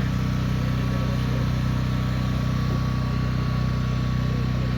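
An engine running steadily at idle, a low even hum that does not change.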